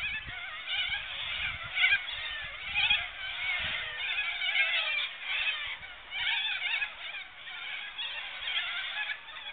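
A flock of cockatoos calling, many short wavering calls overlapping without a break.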